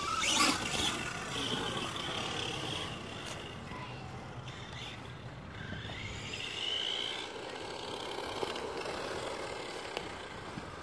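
Electric motor of a Redcat Blackout XTE RC monster truck whining as the truck drives around on a 3S battery, the whine rising about six seconds in as it speeds up.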